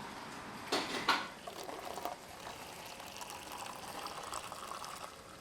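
Café coffee machine making a coffee: two sharp knocks, then a steady hiss of hot liquid running into a cup.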